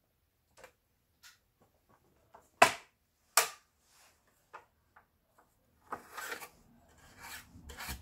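Plastic casing and parts of an opened Singer 7466 sewing machine being handled: scattered light clicks, two sharp knocks about three seconds in, then rustling and scraping near the end.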